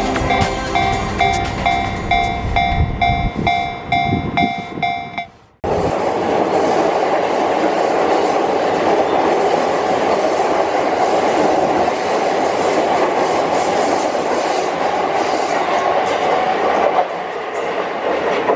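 Japanese level-crossing warning bell ringing about twice a second, then, after a sudden cut, a JR Yamanote Line train running steadily past the crossing, dropping off a little near the end.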